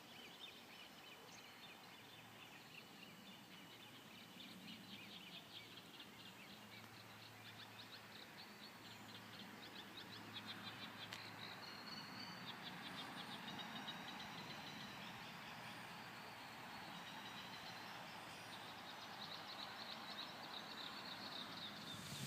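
Faint birdsong: several birds chirping and giving quick trills over a soft, steady outdoor hiss.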